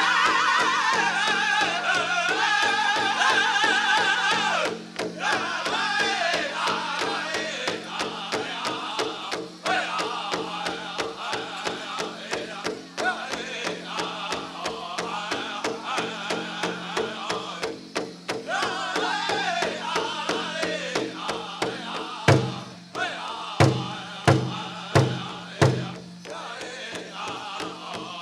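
Powwow drum group singing to a fast, steady beat on a big drum, the voices high and loudest at the start. From about three-quarters of the way through, a run of much louder, heavier hard beats stands out from the steady drumming.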